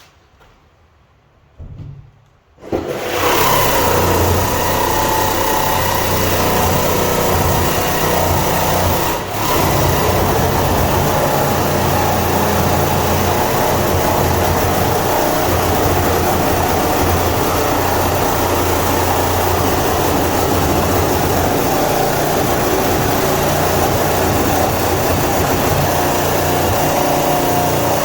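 Jigsaw cutting through the sheet-steel side panel of a Sprinter van, a loud steady buzzing saw noise that starts about three seconds in and runs on with one brief dip.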